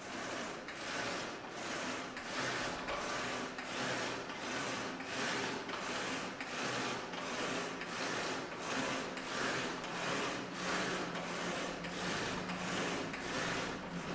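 VersaClimber climbing machine in use, making a rasping swish with each stroke of the arms and legs, in a steady rhythm of about two strokes a second.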